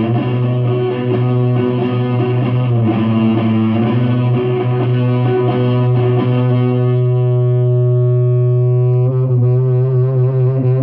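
Electric guitar played through an amplifier: a low note rings on steadily under other held notes. Near the end the sustained notes start to waver in pitch and pulse in loudness.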